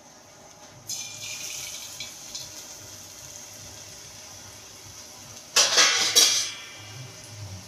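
A test piece of batter-coated colocasia leaf drops into hot oil about a second in and sizzles steadily, the sign that the oil is hot enough for frying bhajji. A brief, much louder burst of noise comes about five and a half seconds in.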